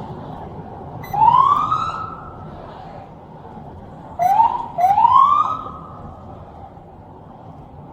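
Police siren giving three short rising whoops, one about a second in and two back to back around four to five seconds in, over the steady rumble of a car driving.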